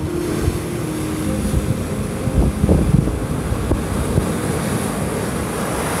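Ocean surf breaking against a large rock and washing over a pebble beach, with wind buffeting the microphone; a bigger wave surges about two and a half to three seconds in.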